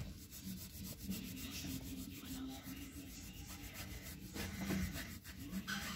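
Crayon scribbling back and forth on paper while colouring in, a rapid run of scratchy rubbing strokes.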